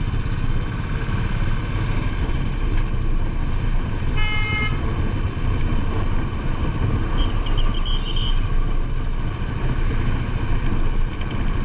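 Royal Enfield Bullet 500's single-cylinder engine running on the move, with wind rumbling on the microphone. A vehicle horn sounds once, briefly, about four seconds in.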